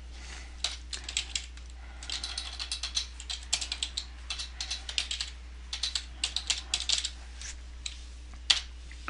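Typing on a computer keyboard in quick runs of keystrokes, then a pause and a single louder key press near the end. A steady low electrical hum runs underneath.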